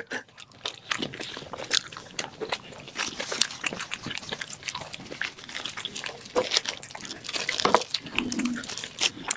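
Close-miked chewing and biting into chicken shawarma rolls: irregular wet clicks and small crunches.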